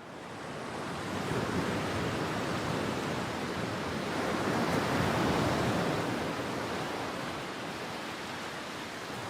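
Ocean surf: a steady rushing wash of waves. It fades in at the start, swells to its loudest about five seconds in, then eases.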